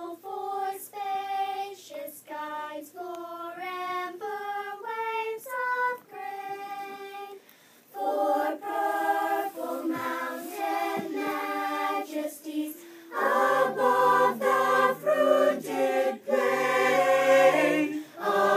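Unaccompanied singing: a single voice holding one sustained note after another, joined by further voices in harmony about eight seconds in, and louder and fuller with a low part added from about thirteen seconds.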